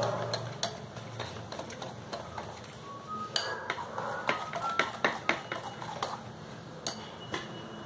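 Metal wire whisk beating a thick gram-flour batter in a glass bowl, its wires clicking and tapping irregularly against the glass as the lumps are whisked out.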